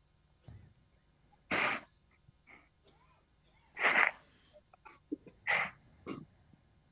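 A person breathing heavily and audibly into a close microphone: three forceful breaths about two seconds apart, with softer breath sounds between.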